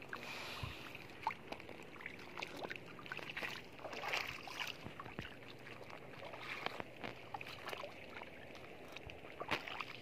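Footsteps in flip-flops wading through shallow seawater over wet sand and mud: irregular sloshing and splashing, with a couple of sharper splashes about a second in and near the end.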